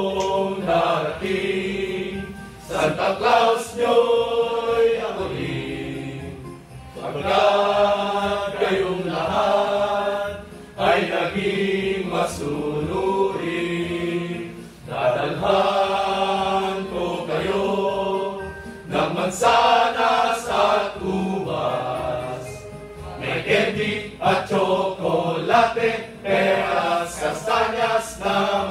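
A group of men singing together as a choir, in long phrases with short breaks between them.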